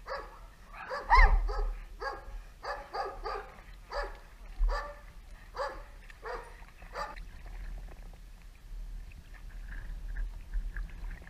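A dog barking continuously, about two barks a second, then growing fainter and sparser about seven seconds in.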